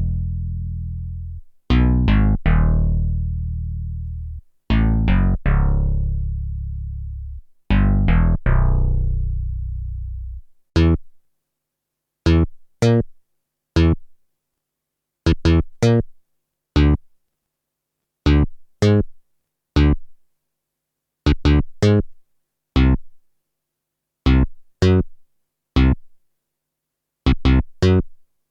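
Ambient electronic music on a synthesizer. For about the first ten seconds, quick groups of notes each ring on into a long, slowly fading low tone. After that come short, clipped notes in ones and twos, with silence between them.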